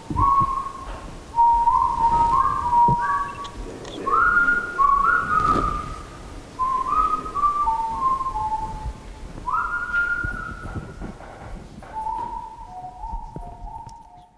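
A slow tune whistled in single clear held notes that step up and down, fading out near the end.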